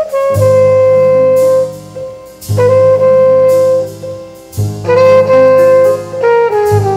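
Jazz background music: a horn section plays a repeating riff of long held chords over a bass line, a new phrase starting about every two seconds.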